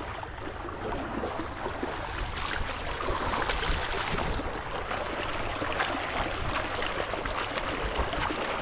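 Shallow stream of muddy water running and trickling over rocks, a steady rushing hiss.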